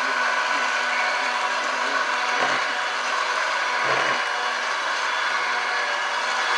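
Electric hand mixer running steadily, its twin beaters whisking eggs in a plastic bowl. Two brief knocks come about two and a half and four seconds in.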